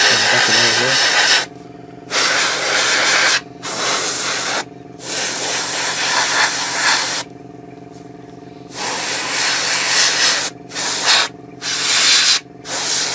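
Airbrush spraying paint in about nine short hissing bursts, each started and stopped at the trigger, with brief pauses between. A steady low hum runs underneath.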